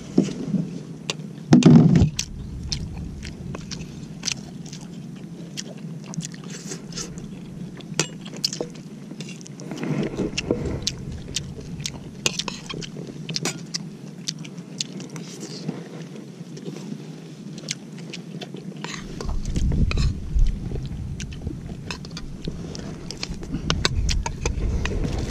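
A metal spoon clinking and scraping on a plate, with chewing, heard as many short clicks throughout. A low rumble comes in about three-quarters of the way through.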